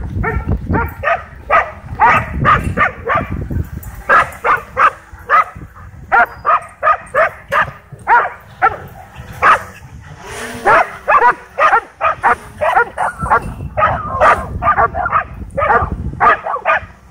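Several dogs barking over and over in a rapid, excited run of about two to three barks a second, set off by a drone overhead.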